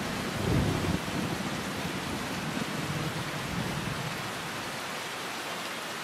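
Heavy rain falling steadily on forest, an even hiss, with a low rumble that swells in the first second and then fades back.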